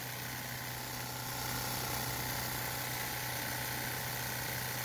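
Homemade 3D-printed Newman motor running, its rotor spinning between two large coils with a steady hum.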